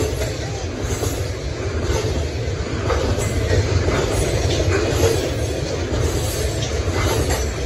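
Freight train of tank cars rolling past: a steady rumble of steel wheels on rail, with a few faint clicks as the trucks pass over rail joints.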